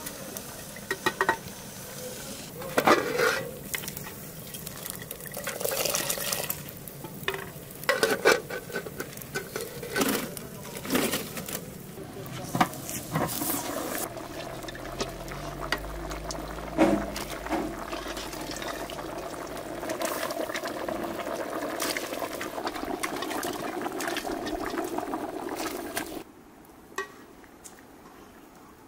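Metal cooking pots and a ladle clinking and scraping, with liquid being stirred and poured, over several seconds of sharp knocks. About 26 s in the clatter stops and only quiet outdoor ambience is left.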